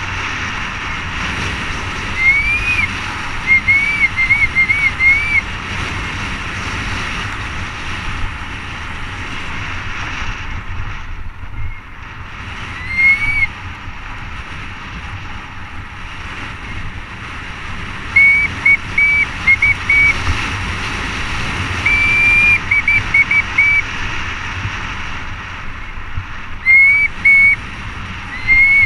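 Bicycle disc brakes squealing in short, high chirps, in quick runs of three to five at a time, over a steady rumble of wind and tyres on the dirt fire road.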